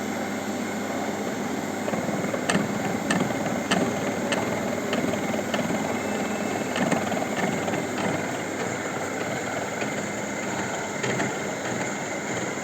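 Milling machine set up for cutting helical gear teeth, running steadily with a dense mechanical hum. For a few seconds in the middle a sharp tick repeats about one and a half times a second.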